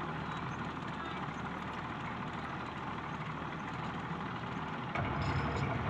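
Motorboat engine running steadily under way, with water and wind noise; the low rumble grows louder about five seconds in.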